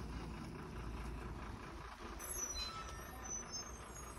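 A vehicle engine running steadily at low level, with a few faint high squeaks about halfway through.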